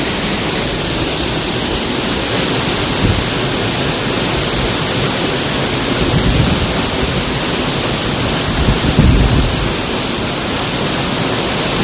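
Hossawa Falls' water pouring down: a loud, steady rushing noise with no letup.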